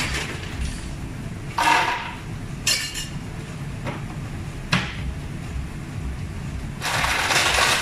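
Bottles and glassware knocking and clinking at a bar, three short clanks spread over several seconds, then a steady loud rushing noise starts near the end.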